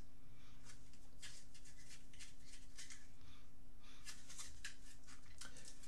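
Repeated short, faint nasal sniffs as a person smells a wax bar held up to the nose, over a low steady hum.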